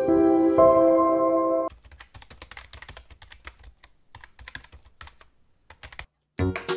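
A short music jingle that stops about a second and a half in, then a rapid run of computer-keyboard typing clicks lasting about four seconds, a typing sound effect laid under text being typed onto the screen. Music comes back in near the end.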